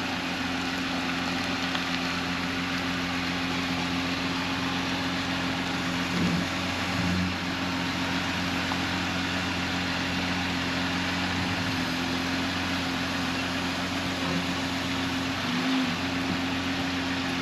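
A vehicle engine idling steadily, a low even hum with no revving.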